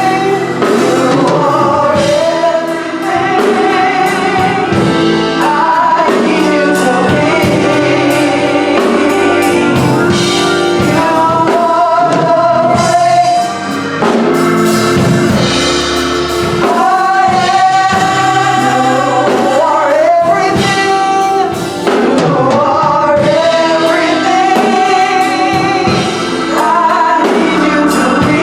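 Gospel choir singing with instrumental backing and a drum kit, in long held, wavering notes.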